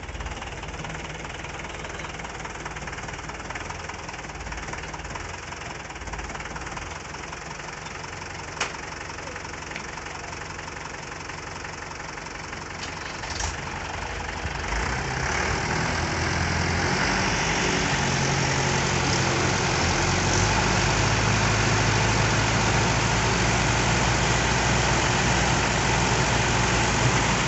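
Diesel engines of Mahindra farm tractors idling steadily, with one sharp click about a third of the way in. About halfway through the engine sound grows louder and stays louder, as a tractor is throttled up.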